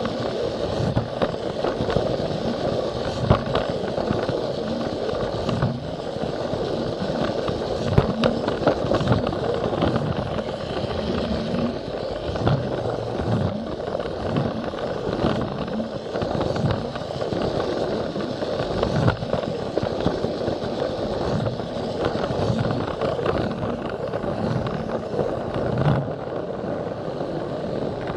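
Battery-powered Plarail toy train running along plastic track: a steady motor whir with its plastic wheels rattling and clicking over the rail joints.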